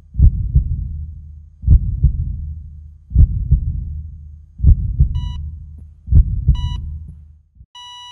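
Heartbeat sound effect: five low double thumps (lub-dub) about every second and a half, joined by two short heart-monitor beeps. Near the end the monitor goes into one continuous flatline tone, the sign of the heart stopping.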